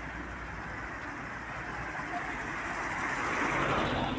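Street traffic noise: a passing vehicle's sound swells to its loudest shortly before the end, then eases off.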